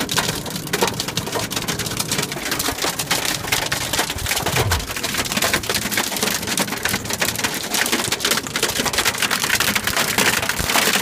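Hailstones pelting a car's roof and glass, heard from inside the car: a dense, unbroken patter of small hard impacts.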